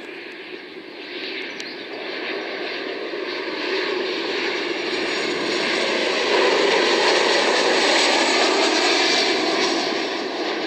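Boeing 737 twin-jet airliner on landing approach with gear down, its engine noise a steady rush that grows louder as it nears, peaks about two thirds of the way through, then eases slightly.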